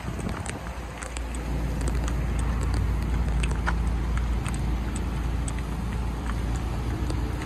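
Steady low rumble of wind buffeting the microphone over the hum of road traffic, with scattered light clicks.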